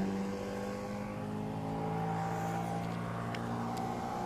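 A boat motor running steadily in a low, even hum, with a couple of faint clicks near the end.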